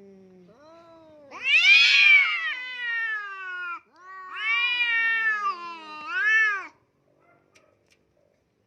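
A cat yowling in long, drawn-out meows: two long calls, the second followed at once by a shorter rising-and-falling one.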